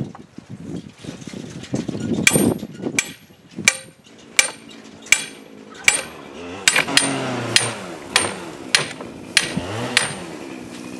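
Hammer blows on a wooden pallet fence: a steady run of about a dozen sharp strikes, a little faster than one a second, each with a short metallic ring, after a few soft taps at the start.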